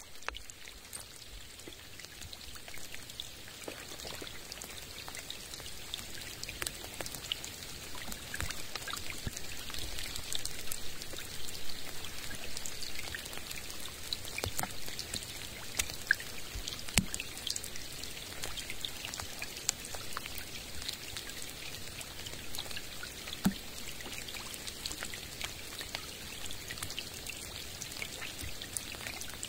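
Rain falling on a lake and the forest around it: a steady hiss full of separate close drop ticks, with a few louder single drops. It fades in over the first several seconds.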